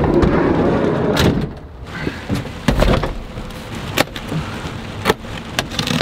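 Rustling handling noise for about a second and a half, then a scatter of sharp knocks and clicks as a cardboard box is handled and its plastic strap is cut with a knife.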